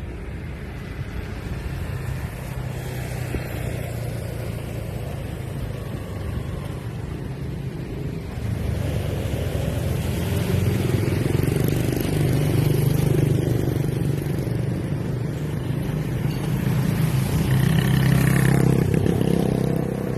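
Street traffic of motorbikes and cars passing, a steady engine hum that grows louder from about halfway through.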